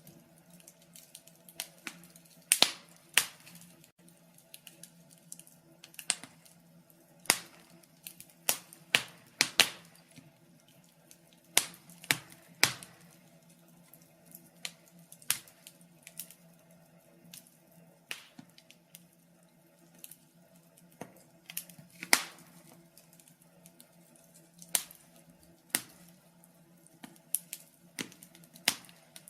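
Wood fire crackling: irregular sharp pops and snaps, some much louder than others, over a faint steady low hum.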